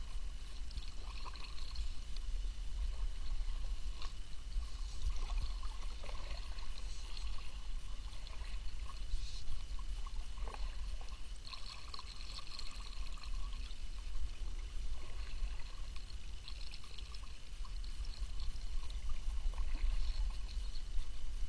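Kayak paddle strokes in calm water: the blades dipping and water trickling and dripping off them, over a steady low rumble.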